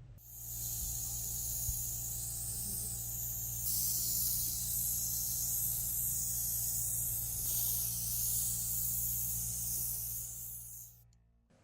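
Compressed-air spray gun hissing steadily over a steady machine hum. The hiss shifts slightly about a third and two thirds of the way in, then cuts off abruptly near the end.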